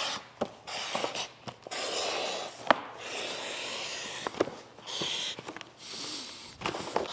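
Large sheet of vinyl wrap film being handled and slid over a car's body: bursts of rustling and rubbing, with a few sharp ticks.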